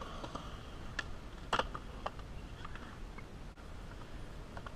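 Skateboards clacking on concrete: a few scattered sharp clacks, the loudest about one and a half seconds in, over a faint steady outdoor hiss.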